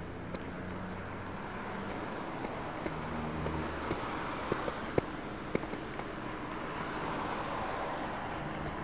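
Road traffic on a multi-lane city street, a steady wash of tyre and engine noise that swells through the middle and eases toward the end, with occasional sharp clicks.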